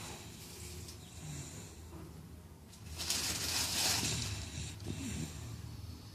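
Sleeping dog snoring: one long, loud hissing breath about three seconds in, with fainter breaths before and after it.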